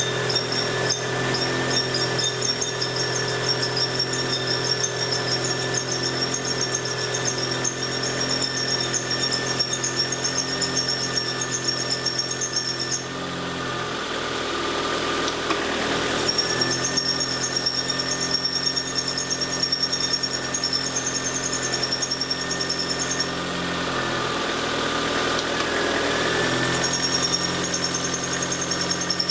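Toyota MR2 (SW20) engine running steadily, with a high-pitched chirping squeal over it: the abnormal noise being chased. The squeal stops for a few seconds about halfway through and again about three-quarters through, then comes back while the engine keeps running.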